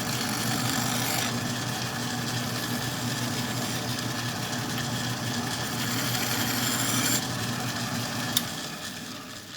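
Metal lathe running with a steady hum while a tool scrapes against the spinning bolt to take off a small lip. The scraping stops about seven seconds in, there is a single sharp click, and the lathe then winds down.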